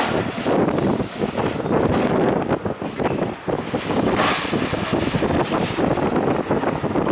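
Demolition debris crashing and crunching down without pause, with a sharper crash about four seconds in. Wind buffets the microphone.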